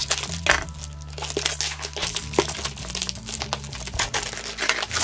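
Thin plastic mailer bag crinkling and crackling as it is cut open with spring-loaded scissors, in a dense run of irregular rustles and snips.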